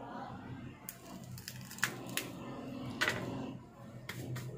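Scattered sharp clicks and crackles, about eight of them, from the handling of a cracked iPhone 6 screen assembly and its plastic film layers. A low steady hum runs underneath.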